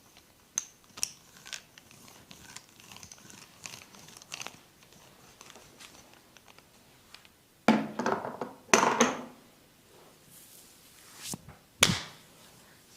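Hands working a massage on skin and hair: soft crinkling rubs and light clicks, then two louder rubbing bursts about eight and nine seconds in and a sharp one near the end.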